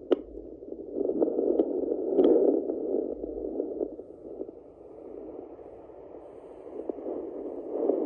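Fetal Doppler's loudspeaker giving a rushing, swelling whoosh as its 3 MHz probe searches a pregnant Yorkshire terrier's belly for the puppies' heartbeats, with a few sharp scrapes and clicks of the probe moving on the fur.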